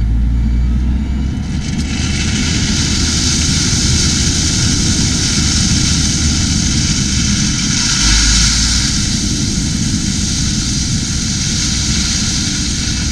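Dump truck engine running as its raised bed tips out a load of rock, with a steady hiss of pouring rock starting about two seconds in over the low engine rumble.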